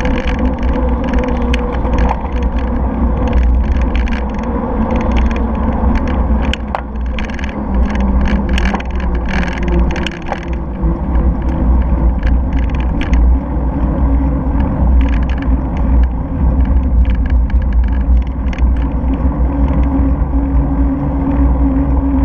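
Wind rumbling on the microphone of a camera mounted on a moving bicycle, with the bike's tyre noise on tarmac. Short clicks and rattles come thickly in the first half and thin out after that.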